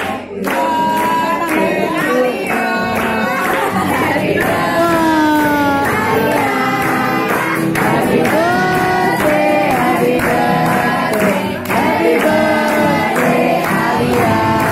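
A group of party guests singing a birthday song together, clapping in time at about two claps a second.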